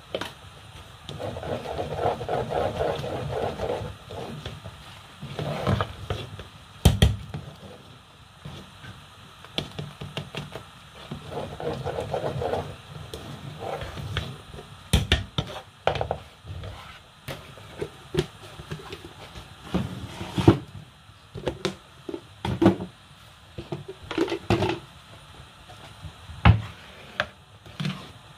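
A cooking spoon stirring thick ogbono soup in an aluminium pot: a few stretches of scraping and many sharp knocks of the spoon against the pot, thicker in the second half.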